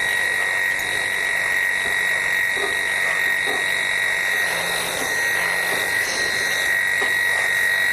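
Wahl KM2 electric dog clipper with a snap-on comb running with a steady high-pitched buzz while trimming the bulky side coat of a Labradoodle.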